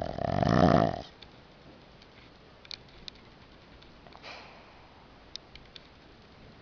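A pug snoring as she falls asleep: one loud snore about a second long at the start, then quiet breathing with a few faint clicks and a soft snuffle about four seconds in.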